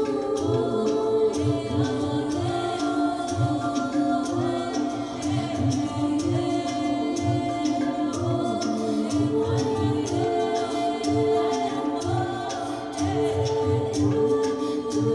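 Music: a choir of voices singing held, stepping lines over a low repeating beat with sharp clicks.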